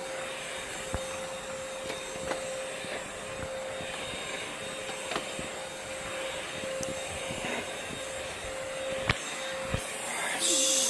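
Vacuum cleaner running steadily with a constant hum, picking up crumbs, with a few light clicks and knocks.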